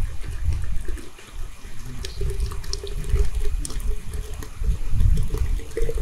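Liquid pouring into a glass bottle packed with berries and sugar, an uneven rush with a tone that rises as the bottle fills.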